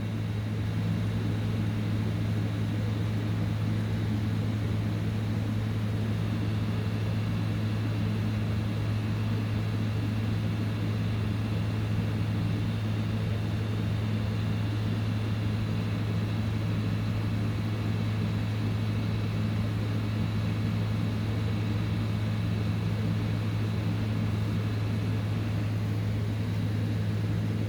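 Heat gun blowing hot air steadily onto a MOSFET chip on a crypto-miner hashboard to melt its solder for removal. It is a constant whir with a strong low hum and no change in pitch or level.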